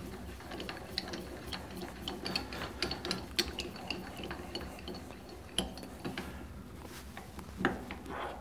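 Grizzly G0602 lathe tailstock being worked by hand: a run of light, irregular metallic clicks and ticks from its handwheel and lever, with a couple of sharper knocks in the second half.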